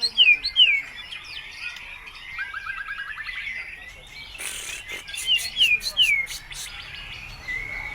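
White-rumped shama singing in full voice: runs of loud, downward-slurred whistles, a fast trill about a third of the way in, and a burst of sharp clicking notes past the middle, typical of its varied song mixed with mimicked calls of other birds.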